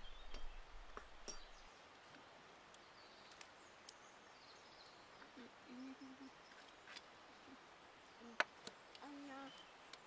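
Quiet camp background: a faint steady hiss with a few scattered light clicks and knocks, the sharpest about eight seconds in, and two brief soft voice sounds, one midway and one near the end.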